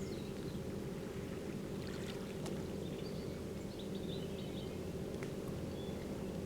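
A steady low motor hum, with a few faint bird chirps.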